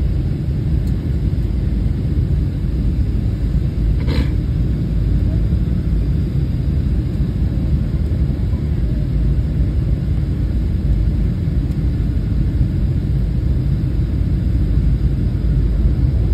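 Steady low rumble of a Boeing 737's engines and the air rushing past the fuselage, heard inside the passenger cabin during the descent. A short click sounds once, about four seconds in.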